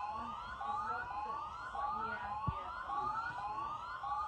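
Tsunami warning siren sounding a repeated rising whoop, about one and a half sweeps a second, each tone climbing and then dropping back sharply before the next. A single short knock comes about halfway through.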